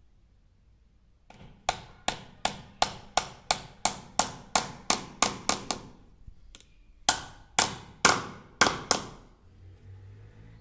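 Hammer driving a nail into a small wooden block: a run of about a dozen sharp, ringing strikes at roughly three a second, then, after a short pause, five more.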